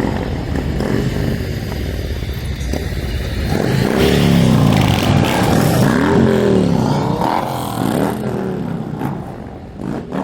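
A procession of motorcycles riding past, several engines rising and then falling in pitch as each goes by, loudest in the middle and fading near the end.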